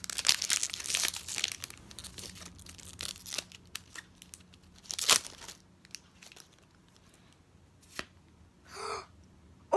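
Foil wrapper of a Pokémon booster pack being torn open and crinkled, loudest in the first second or two. Scattered crackles follow, with a sharp one about five seconds in, and it is quieter toward the end.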